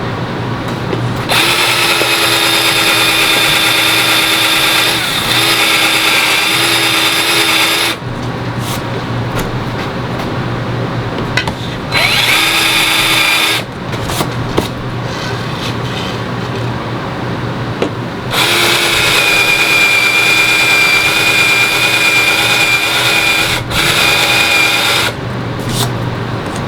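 Power drill with a Forstner bit boring shallow recesses into a 1/2-inch PVC sheet, in three runs: a long one, a short one about halfway through, and another long one near the end. Each run is a steady whine with handling noise between runs.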